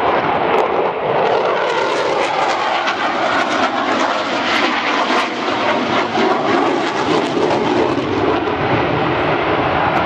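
Eurofighter Typhoon's twin EJ200 jet engines at display power, a loud, steady rush of jet noise.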